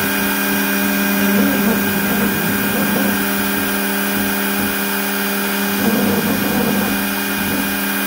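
X-Carve CNC router spindle running at speed with a steady hum while a V-bit engraves an aluminum dog tag through blue tape. Rougher cutting noise rises briefly about a second and a half in and again near six seconds.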